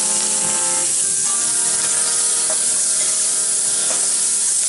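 Okra sizzling and hissing in hot oil in a steel wok, sending up steam, with a metal spatula stirring and scraping now and then.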